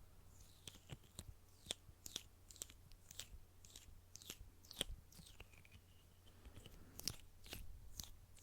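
Quiet, irregular small clicks and taps, roughly one or two a second, with a short faint squeak about six seconds in: close-miked ASMR trigger sounds of fingernails on a box.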